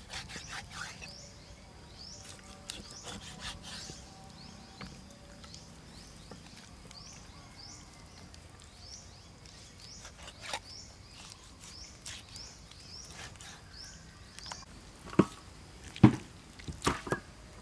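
Knife cutting raw pork leg on a wooden chopping board, with scattered small taps and clicks, while a bird chirps over and over in the background. Near the end come a few loud, sharp knocks.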